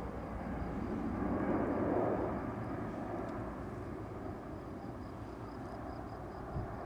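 Distant drone of a C-130E Hercules's four turboprop engines as the transport passes overhead, swelling about two seconds in and then easing off.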